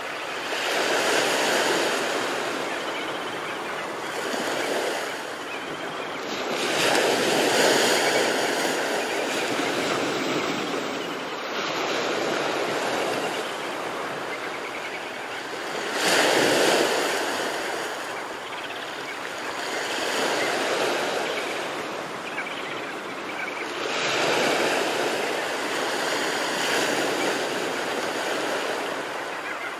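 Ocean surf breaking and washing around rocks at the shore, a steady rush that swells and falls back as each wave comes in, every four to five seconds.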